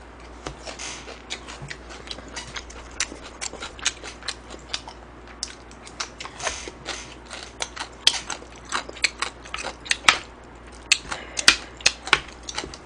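Close-miked chewing of a mouthful of food: a run of wet mouth clicks and smacks, several a second and irregular.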